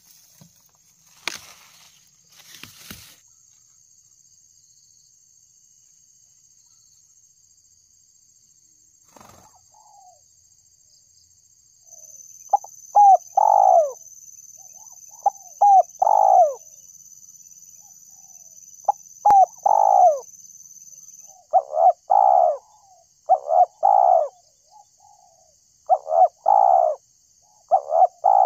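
Spotted dove cooing: repeated short coo phrases, each about a second long, starting about twelve seconds in and coming every couple of seconds. A few faint knocks and rustles near the start.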